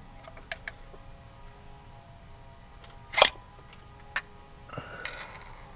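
A metal screwdriver clicking and scraping against engine parts while prying at a stuck piece: a few sharp clicks, the loudest about three seconds in, and a short scrape near the end.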